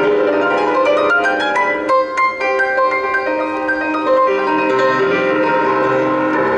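Upright piano played solo at a fast, energetic tempo: a quick run of notes climbs in pitch about half a second in, followed by rapid repeated notes and chords.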